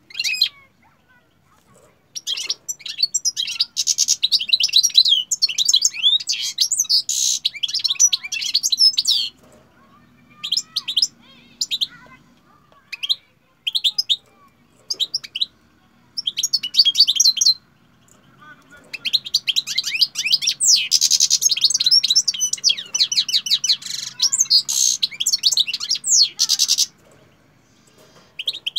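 Caged finch singing: long runs of rapid, high twittering phrases, some lasting several seconds, broken by short pauses.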